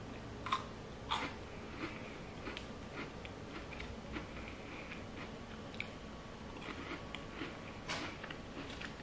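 A person biting into a peanut-butter stick dipped in thick jam, then chewing it with many small wet clicks and smacks of the mouth. Two sharper clicks come in the first second or so and another near the end.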